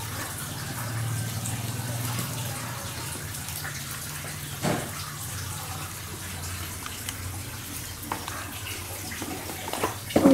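A steady rushing noise like running water, over a low hum, with a short knock about halfway through and a few light knocks near the end.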